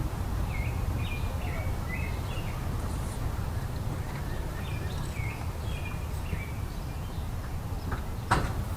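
A songbird singing two short runs of quick chirping notes over a steady low rumble, with a single sharp knock near the end.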